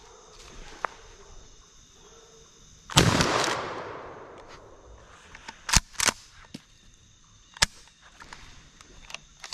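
A single 20 gauge shotgun shot about three seconds in, its report dying away over a second and a half. A few sharp clicks follow: two close together a few seconds later, and another soon after.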